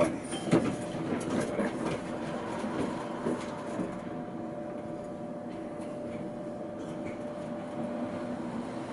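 Tatra K2P tram standing at a stop, heard from inside: a steady electrical hum, with clatter and knocks in the first few seconds that then die away.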